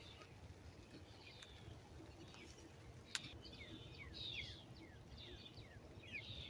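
Young birds (chicks) chirping softly: many short, falling peeps that come thicker from about halfway. A single sharp click a little after three seconds.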